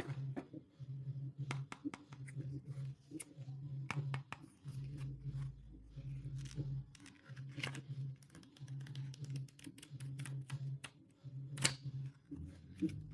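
Stationery packaging being opened and handled: scattered crinkles, scratches, taps and clicks, with one sharper click near the end. A soft low tone pulses steadily underneath.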